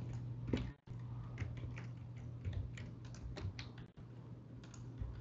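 Computer keyboard keys tapped irregularly, a dozen or so separate keystrokes, over a steady low electrical hum.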